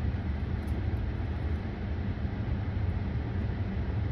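Steady low rumble inside a stationary car's cabin, with no other sound standing out.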